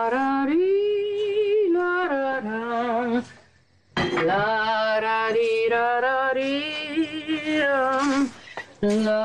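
A woman singing a melody unaccompanied, holding long notes that waver. She breaks off for a short pause about three seconds in, then sings a second, longer phrase.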